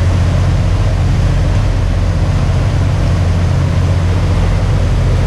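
Boat engine running steadily: a loud, even low drone with a steady rushing noise over it.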